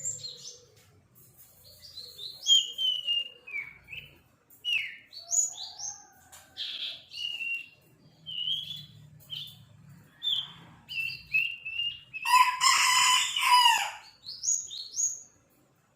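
Young sirpu songbird practising its song: a string of short, high chirps and whistled notes, many gliding downward, broken by brief pauses. About twelve seconds in, a louder, harsher call lasts about two seconds.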